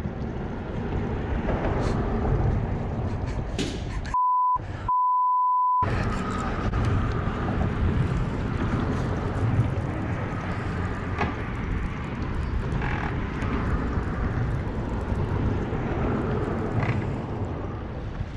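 A censor bleep: a steady high beep in two parts about four seconds in, lasting about a second and a half in all, that replaces the live sound. The rest is steady low rumbling wind noise on the microphone.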